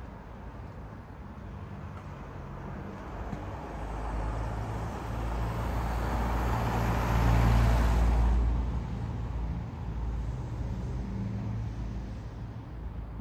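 An SUV driving past close by, its engine and tyre noise swelling to a peak about halfway through and then fading away, over a steady low traffic rumble.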